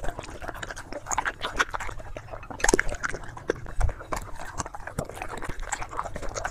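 German Shepherd puppy eating from a bowl: wet chewing and smacking in quick, irregular clicks, with a few louder ones near the middle.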